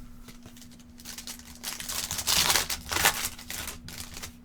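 Plastic-foil trading card pack wrapper crinkling and tearing as it is opened, loudest in the middle for about a second and a half.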